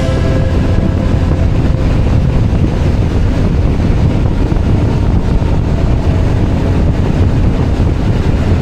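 Honda Forza 350 scooter's single-cylinder engine running, largely covered by steady wind rush on the microphone.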